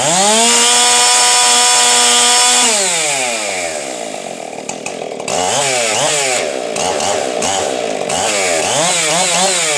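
Husqvarna 576 XP X-Torque chainsaw engine, ported West Coast build, revved up fast to full throttle and held there for about three seconds. It then drops back, and from about halfway through it is blipped up and down in a string of quick revs.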